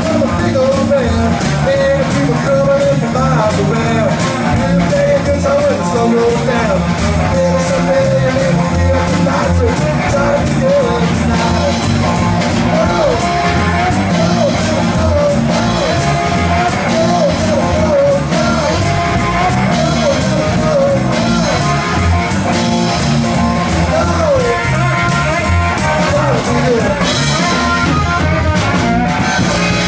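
A live rock-and-roll band playing: electric guitar over a drum kit with a steady, fast cymbal beat, with lead lines bending up and down in pitch.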